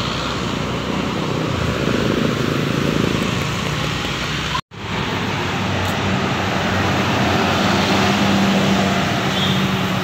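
Diesel tour coaches driving past close by, engine running with road noise; the sound cuts out briefly about halfway, then another coach's engine hums steadily as it pulls out and drives off.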